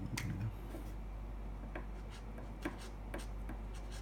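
Small handling noises on a wooden workbench: scattered light clicks and taps, a few each second, with a little rubbing, over a low steady hum.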